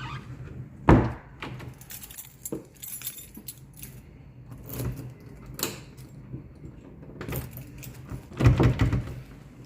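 Keys jangling, with several sharp knocks and thumps among them: the loudest about a second in and a cluster near the end.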